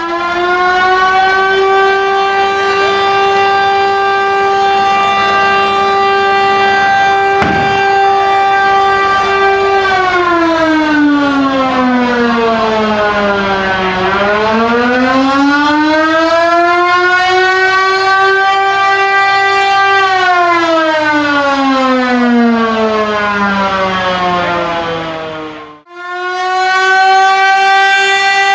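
A siren with a rich, buzzy tone holds one high pitch for about ten seconds, then slides down, climbs back up, holds again and slides down once more. It cuts off abruptly and then resumes at its high steady pitch. A single sharp bang sounds about seven seconds in.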